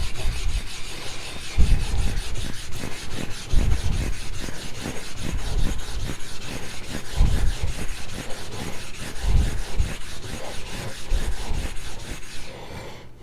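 Shigefusa Swedish carbon-steel knife blade being stroked back and forth on a whetstone: a steady run of gritty scraping strokes, about one a second, that stops shortly before the end.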